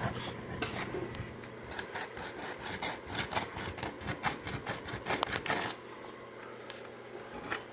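Light, irregular scraping and tapping of hand work on Bondo filler on a wooden porch pillar, shaping the patch; it stops about six seconds in.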